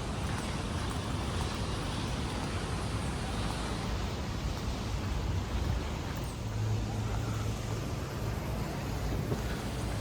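City street traffic: a steady rumble of passing motor vehicles, with a low engine hum that swells about six seconds in and fades a second or so later.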